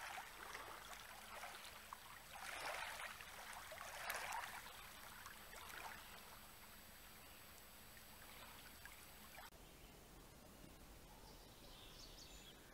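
Faint small waves lapping at the edge of a calm lake, with two slightly louder washes in the first few seconds. After that it drops to near silence.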